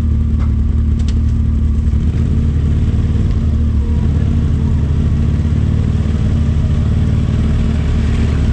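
Side-by-side UTV engine running with a steady low drone, its pitch shifting slightly about halfway through.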